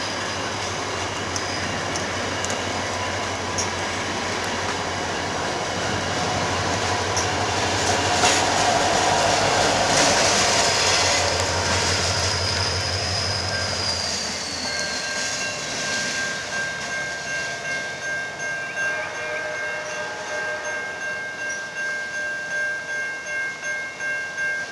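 Virginia Railway Express commuter train passing close by: steady rumble of bilevel passenger cars on the rails, loudest as the diesel locomotive at the rear goes by about halfway through. As the train pulls away, a high tone slides down, then steady high-pitched wheel squeal and a rhythmic clatter of wheels over the rails follow.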